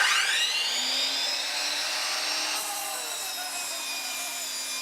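Electric miter saw switched on: the motor whine rises quickly to full speed in about half a second, then runs steadily at full speed.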